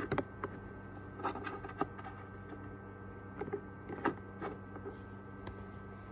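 A steady low hum with a few light taps and rubbing noises, mostly in the first two seconds and again around four seconds in.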